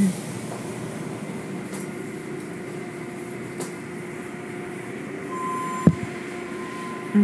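Automatic car wash heard from inside the car: a steady rush and machinery hum as soapy cloth curtains and strips sweep over the windshield and hood. A steady high tone joins about five seconds in, and a single sharp knock comes shortly after.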